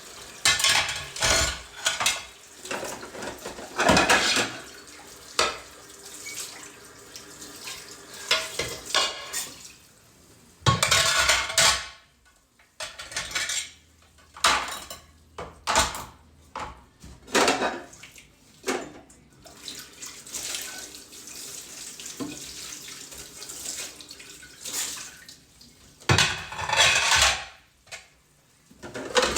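Kitchen sink with water running in irregular spurts and dishes and cutlery clattering as they are handled and rinsed.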